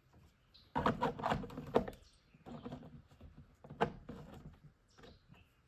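Hard plastic knocking and scraping as a plant cup is worked into a port of a 3D-printed plastic hydroponic tower: a quick cluster of knocks about a second in, then a few softer knocks and one sharp click a little before the end.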